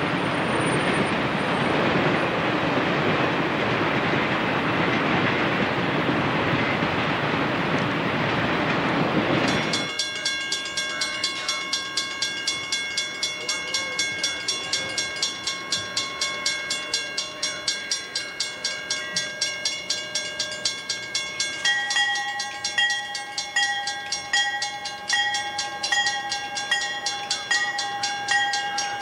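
Freight cars rolling over a road crossing, a loud steady rushing rumble that cuts off abruptly about a third of the way in. After that a railroad bell rings in quick, even strikes with a steady metallic ring, and a second, lower ringing tone joins about three-quarters of the way through.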